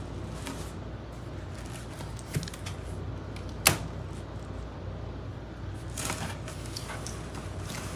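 Scattered handling clicks and knocks, a sharp knock about halfway through and a small cluster near the end, over a steady low hum.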